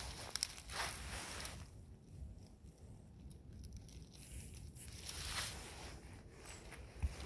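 Dry grass, pine needles and fallen leaves rustling and crackling under bare feet. There are several swishes in the first couple of seconds, a quieter stretch, then more rustling after about five seconds.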